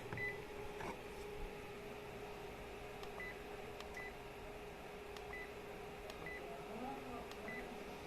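Faint key-press beeps from a Sharp GX30 mobile phone: six short, high blips at irregular intervals with a few light button clicks, as the phone's keys are pressed between ringtones.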